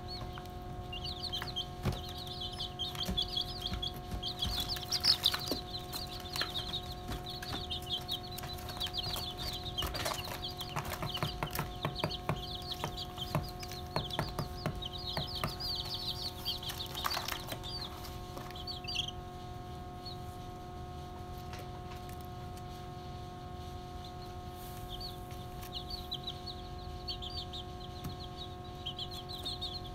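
A flock of young chicks peeping in rapid, high-pitched runs, with scattered sharp clicks and a faint steady hum underneath. The peeping dies away about two-thirds of the way through and picks up again near the end.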